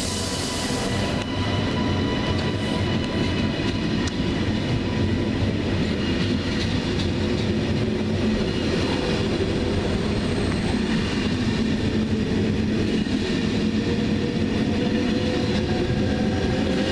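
A TGV Duplex double-deck high-speed train rolls past close by, its wheels and running gear making a steady rumble with faint whining tones. There is a burst of hiss in the first second, and a faint whine rises gently in the second half.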